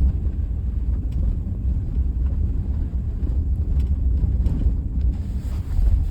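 A car driving over a bumpy road: a steady low rumble from the tyres and suspension, with a few faint knocks or rattles scattered through it.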